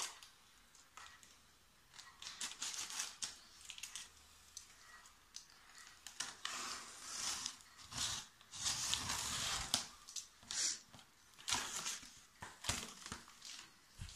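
A cardboard box being opened: a blade slitting the packing tape, and the cardboard flaps scraping and rustling, in irregular bursts, the longest about two-thirds of the way through.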